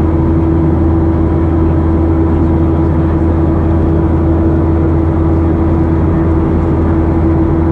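Boeing 737-700's CFM56-7B turbofan engines during the climb, heard inside the cabin from a window seat over the wing: a steady, even drone with a constant hum running through it.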